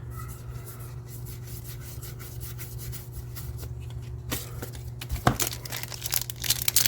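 A trading-card booster pack wrapper crinkling and tearing open. The crackles grow louder and denser over the last couple of seconds, over a steady low hum.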